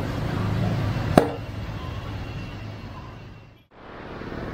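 Steady workshop background noise with a low hum, broken by one sharp knock about a second in. The sound then fades down to a moment of silence and comes back, as at a cut in the video.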